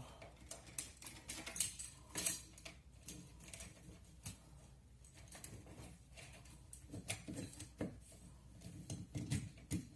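Irregular light clicks and metallic clinks of ceiling fan parts and wiring being handled and fitted together.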